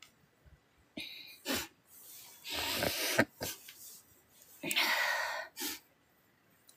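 A woman sniffling and breathing hard through her nose in three short bursts a second or two apart, the sniffles of someone crying.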